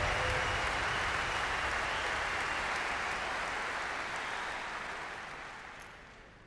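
Large arena audience applauding, the dense clapping dying away over the last couple of seconds.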